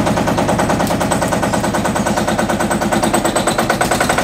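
Lanz Bulldog tractor's single-cylinder two-stroke engine running, a fast, even beat of sharp firing knocks at a steady speed.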